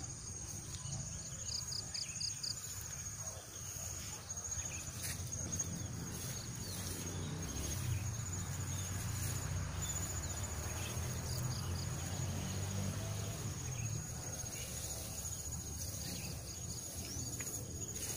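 Insects chirring steadily in a continuous high, fast-pulsing trill, over a low rumble.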